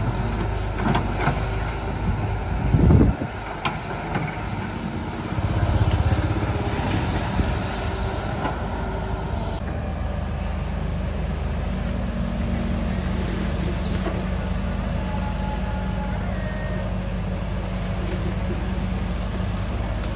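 Sumitomo S265 long-reach excavator's diesel engine running steadily as the hydraulic arm digs mud from the river and swings the bucket back to the bank. A heavy thump comes about three seconds in, and the engine noise swells briefly around six seconds in as the machine works under load.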